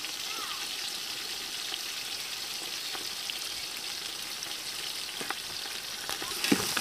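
Chopped onions, tomatoes and green leaves sizzling steadily in an aluminium pot, with small crackles and a sharp knock of the metal ladle against the pot near the end.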